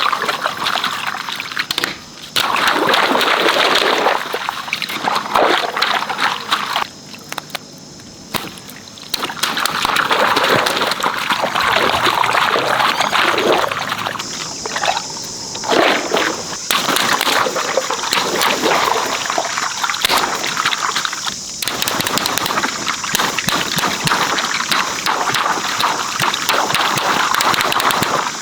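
Water pouring and sloshing while a giant stretchy worm toy is filled, running in long stretches with a brief break about 2 seconds in and a quieter spell a few seconds later.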